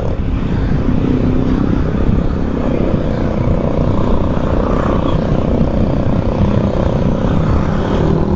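Motorcycle engine running at a steady cruise, mixed with loud wind rush over the rider's microphone.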